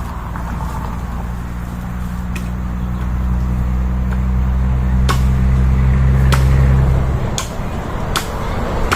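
A motor engine running steadily with a low hum, growing louder and then stopping abruptly about seven seconds in, with a few sharp knocks through it.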